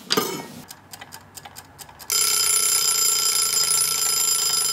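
Mechanical wind-up kitchen timer (a chicken-shaped dial timer) ticking a few times, then its bell ringing steadily from about two seconds in: the timer going off to signal that the baking time is up.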